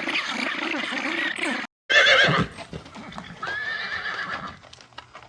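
Equine neighing. A busy jumble of sound cuts off abruptly, then a loud wavering neigh comes about two seconds in, followed by a higher held call about a second long.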